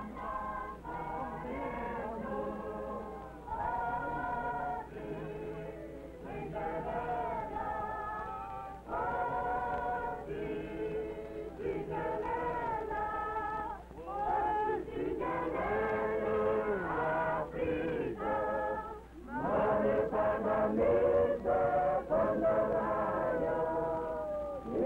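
A crowd singing together unaccompanied: a choral song in phrases of a few seconds each, over a steady low hum in the old film soundtrack.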